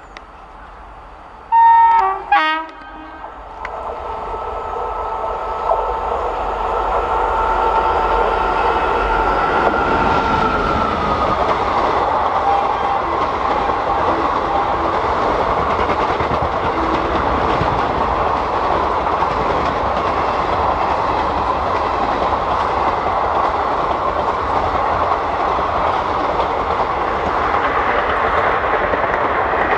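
Twin-tone horn of a WAP-4 electric locomotive sounded in two short blasts about two seconds in. Then the locomotive and its 24-coach express train approach and run past, a steady rumble and wheel clatter that grows louder over several seconds and holds.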